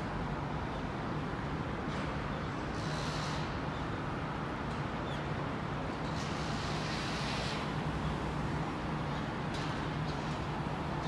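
Steady city traffic noise with a low hum, swelling as vehicles pass about three and about seven seconds in.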